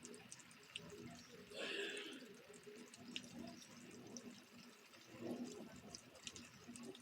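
Faint rain dripping and trickling, with scattered sharp drip ticks. Two brief louder, muffled swells come about two seconds in and again about five seconds in.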